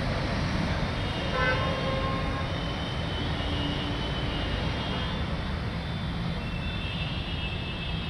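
Steady low rumble of city traffic, with a short pitched tone like a distant vehicle horn about a second and a half in, and faint high thin tones coming and going.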